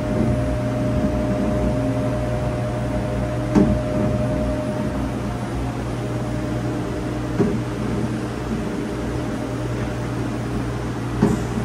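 Steady machinery hum with a couple of faint held tones, broken by three brief soft knocks about four seconds apart.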